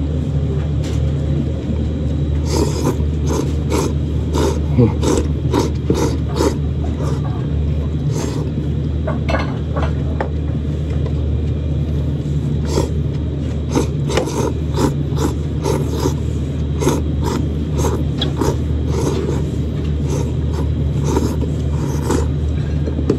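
A person slurping kishimen (flat wheat noodles) and broth from a bowl in rapid, repeated slurps, over a steady low hum.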